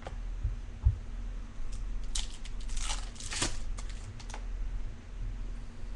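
A baseball card pack's wrapper being torn open and crinkled, in several short rustling bursts through the middle, after a soft thump about a second in.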